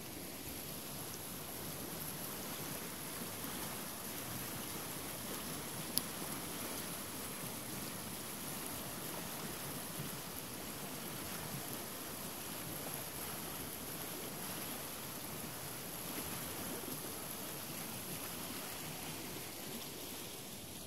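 A small river rushing over stones and through rapids: a steady rush of flowing water. A single sharp click about six seconds in.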